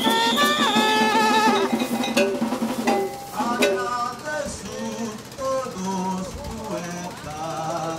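Maracatu rural band playing: a held melody on wind instruments over drums and cowbell, breaking off about three seconds in. A man's voice then carries on alone over quieter sound.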